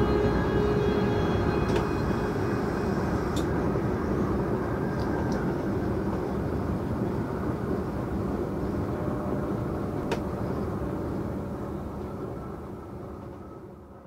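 Electric train running along the track, a steady rumble with a few sharp clicks, fading out over the last couple of seconds.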